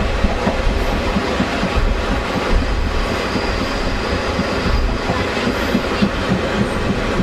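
Taiwan Railway diesel-hauled blue ordinary train running along the track: a steady heavy rumble of wheels on rails with irregular clattering knocks. A faint high whine rises over it from about three to six seconds in.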